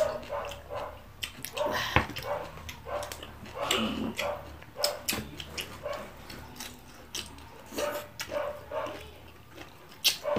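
Close-miked eating sounds: mouth clicks, lip smacks and chewing as two people eat by hand, with short pitched sounds every few seconds.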